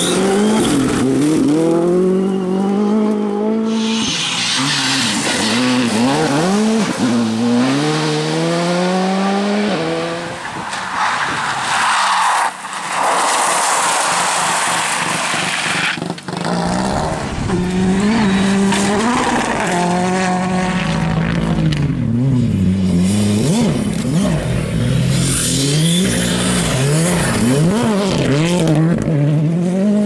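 Rally cars, among them Ford Fiesta R5s and a Subaru Impreza, passing one after another at full attack on a gravel stage. The engines rev up and drop back through repeated gear changes, and loose gravel sprays and hisses off the sliding tyres.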